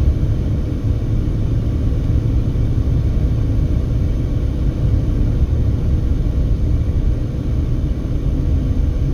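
Steady low rumble of a car driving at highway speed, heard from inside the cabin: road and engine noise with no change in pace.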